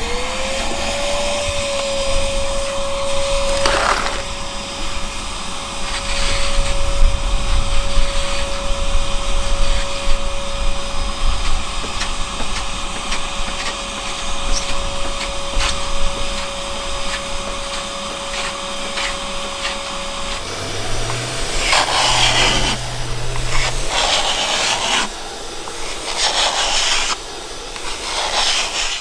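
Vacuum cleaner on a Pro Scraper antifouling scraper spins up to a steady whine, with the rasp of the scraper blade stripping antifouling paint from a boat hull over it. The whine cuts off about two-thirds of the way through, and the harsh scraping strokes go on.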